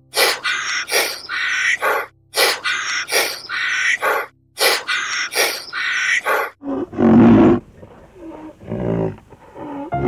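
Repeated animal calls, each a short pitched cry, followed about seven seconds in by a louder, deeper call and another near the end.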